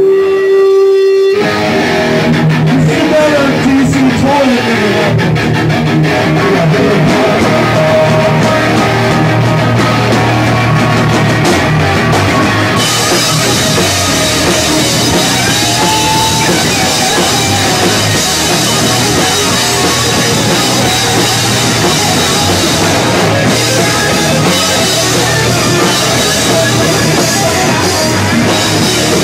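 Live hardcore punk band playing loud with distorted electric guitars and a drum kit. It opens on a single held note, and the full band comes in just over a second in. About thirteen seconds in, the sound turns brighter and harsher.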